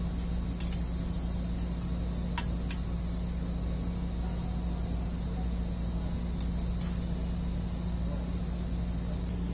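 Steady low machine hum with a faint high whine over it, and a few light sharp clicks from small metal parts being handled as screws are set into a gearbox cover.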